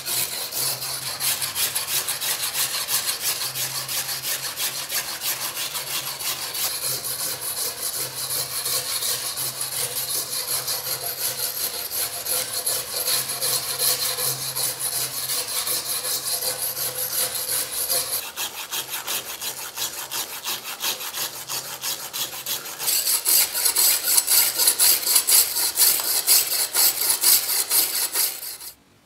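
A hand tool scraping rapidly back and forth over a heavily rusted steel knife blade, knocking off flaky surface rust. The strokes grow louder for the last several seconds, then stop abruptly.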